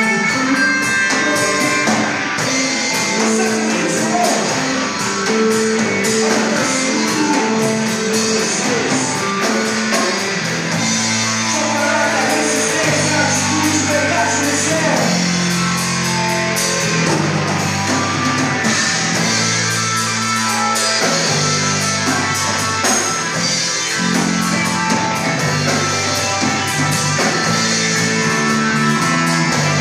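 A rock band playing live: electric guitars, a drum kit and a lead singer. Strong low notes come in about eleven seconds in.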